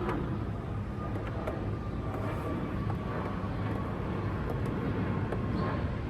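Steady low background rumble with a few faint, scattered clicks and taps from handling the plastic headlight parts.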